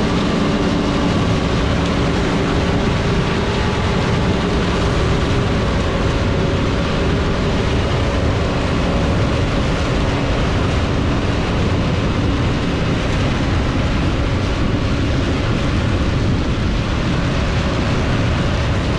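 John Deere 9600 combine running steadily while harvesting soybeans: a dense, even drone of engine and threshing machinery. A faint whine is heard for the first several seconds, then fades.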